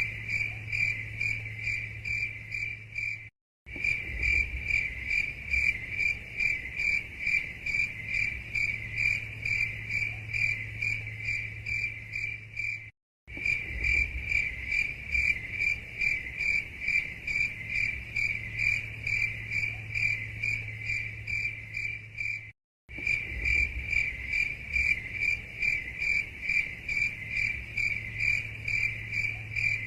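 Crickets chirping steadily, several chirps a second, over a low hum. It is a looped recording that drops to dead silence for a split second about every nine and a half seconds, three times here.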